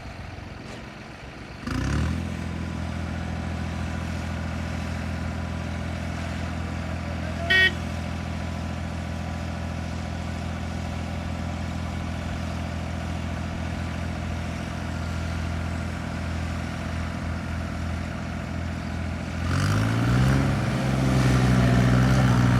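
Tractor diesel engine running at a steady speed from about two seconds in, then revving up near the end and holding at higher revs. A brief sharp high-pitched sound cuts in once, about a third of the way through.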